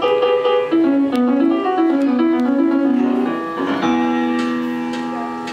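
Piano playing a short intro: a run of melodic notes, then a held chord that slowly fades about four seconds in.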